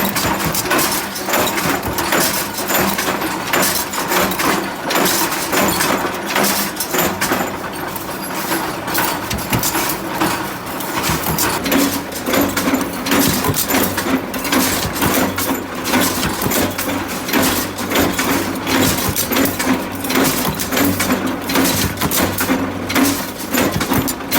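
Factory machinery running, with dense, irregular metallic clanks and knocks over a steady hum that grows stronger about halfway through.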